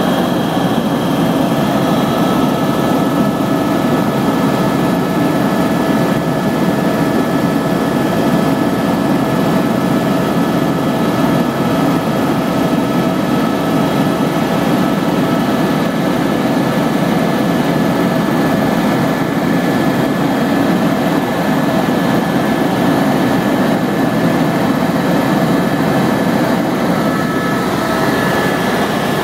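Helicopter in flight heard from inside the cabin: a loud, steady rumble of rotor and engine with several constant whining tones over it.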